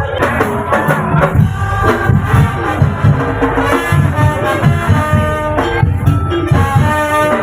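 Tong-tong street percussion music: fast, dense drumming with shakers, with a held, wavering melody line playing over it.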